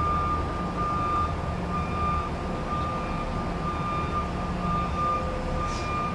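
Truck's warning beeper sounding a repeated single-pitch beep, about one a second, over the low, steady running of the truck's engine: the pattern of a reversing alarm.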